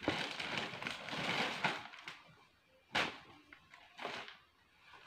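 Clothing rustling as garments are pulled from a pile and shaken out, with a sharp flap of fabric about three seconds in and a shorter rustle a second later.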